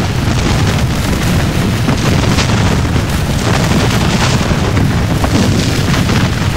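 Battle din of massed musket and cannon fire: a loud, continuous deep rumble with sharp individual shots going off through it.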